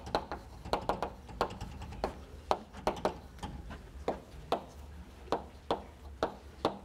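Chalk writing on a blackboard: an irregular run of sharp taps and short scrapes, about two or three a second, as each letter is struck onto the slate.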